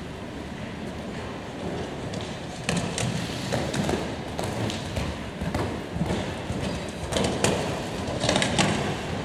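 Horse's hooves striking the arena footing at a canter, a run of irregular thuds starting about three seconds in and loudest near the end, over the steady hum of a large indoor arena.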